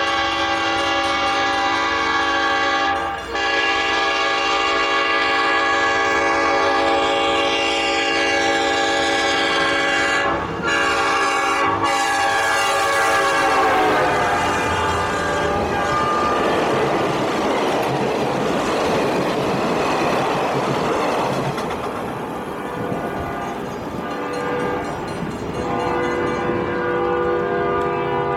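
Train air horn blowing long blasts as the Iowa Pacific 515 approaches a grade crossing, its chord dropping in pitch as the locomotive passes. The steady rumble and wheel clatter of the passing train follows, with the horn sounding again more faintly near the end.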